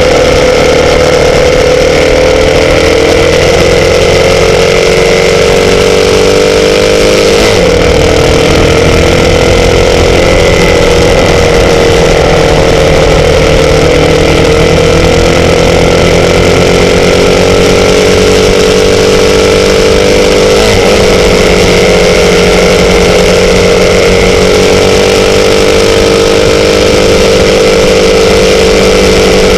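Motorcycle engine running loud and steady, its pitch drifting slowly up and down, with two brief disturbances, one about seven seconds in and another about twenty-one seconds in.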